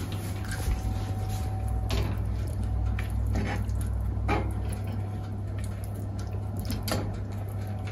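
Wet boiled pork chunks handled and set down on a wire grill rack: a few soft squishy touches and light clicks, over a steady low hum.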